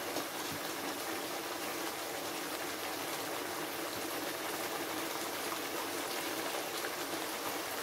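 Watery potato curry simmering in an open pan on a gas stove, a steady even bubbling hiss.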